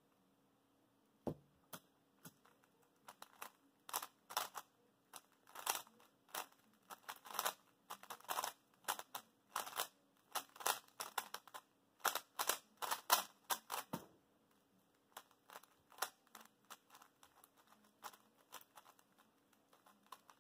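A 3x3 speed cube's layers being turned fast by hand: a dense run of quick plastic clicks and clacks for about twelve seconds, then sparser, slower turning clicks. A louder knock sounds about a second in and another about fourteen seconds in.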